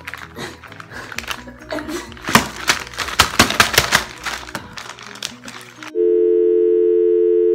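A fast run of knocks and clatters over faint background music, then about six seconds in a loud, steady two-note electronic tone cuts in abruptly: the TV "please stand by" test-card tone.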